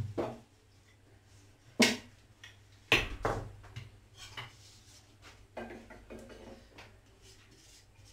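Kitchen utensils knocking against a pan and griddle: a few sharp knocks, the loudest about two and three seconds in, then lighter clinks and a spatula scraping on the griddle.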